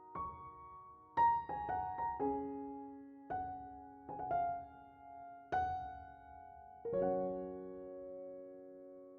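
Slow solo piano music: single notes and chords struck about once a second, each ringing out and fading, with a last chord held and dying away near the end.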